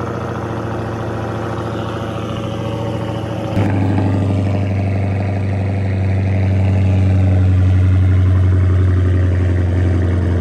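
Car engine idling steadily. About three and a half seconds in, the sound cuts to a louder, steadier idle.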